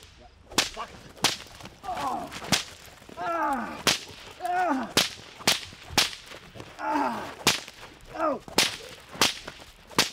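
An agitation whip cracking sharply again and again, about a dozen times, each crack well under a second from the next; it is being snapped to work up a young pit bull in protection-dog training. Short falling calls sound between some of the cracks.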